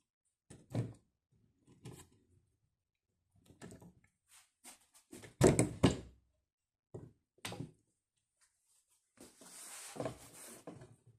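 Irregular knocks and thuds in a small room, the loudest pair about halfway through, with a brief hissing noise near the end.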